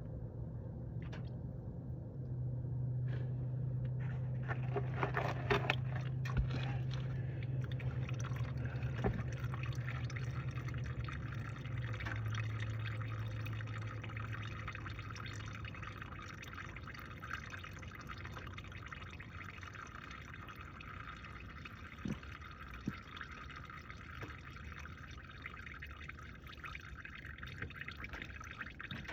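Engine oil pouring in a steady stream from a car's open drain plug hole into a drain pan, the stream easing and getting quieter as it goes. A low hum runs under it and stops about halfway through.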